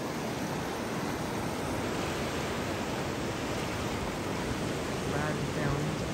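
Steady rush of river water, an even noisy hiss that holds the same level throughout.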